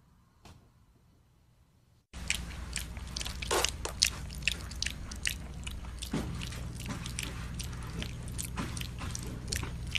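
A piglet chewing and smacking wet mashed food close up: quick wet clicks and crunches, starting about two seconds in, over a low steady hum.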